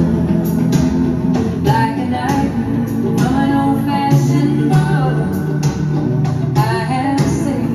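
Music: a song with guitar and singing, playing steadily.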